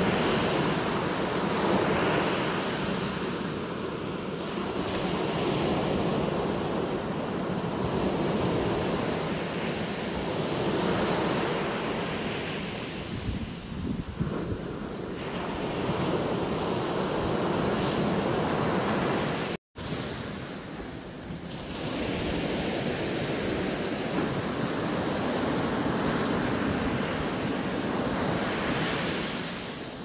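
Surf breaking and washing up a sandy beach, the rush of the waves swelling and fading every few seconds, with wind rumbling on the phone's microphone. The sound cuts out for an instant about two-thirds of the way through.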